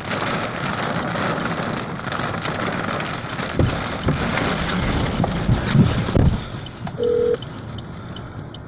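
Wind-driven rain lashing a vehicle, heard from inside, with wind buffeting the microphone and several low thumps in the middle. Near the end the noise drops and a short single-tone beep sounds.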